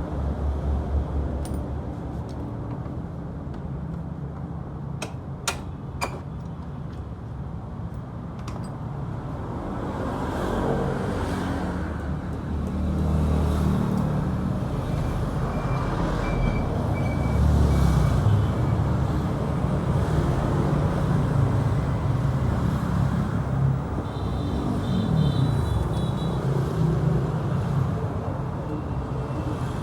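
Motorcycle engine running, its pitch and loudness shifting up and down, louder from about ten seconds in, with a few sharp clicks about five to six seconds in.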